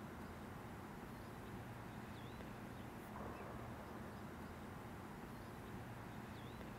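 Faint outdoor ambience: a low steady rumble with a few short, high bird chirps scattered through it.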